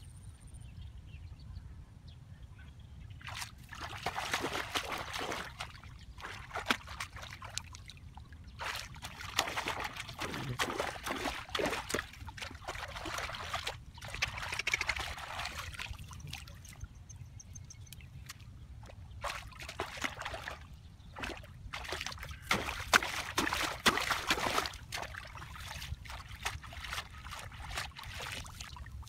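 Water splashing and trickling in separate bouts of a few seconds each, the loudest bout near the end, over a low steady rumble.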